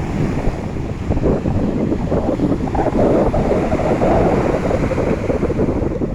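Sea surf washing in, with wind buffeting the microphone; the surf swells louder about halfway through.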